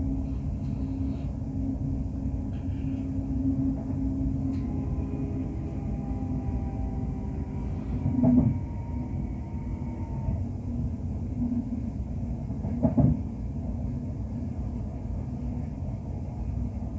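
Cabin running noise inside a Siemens Class 350 Desiro electric multiple unit on the move: a steady low rumble with a faint whine for several seconds in the middle, and two sharp thumps about eight and thirteen seconds in.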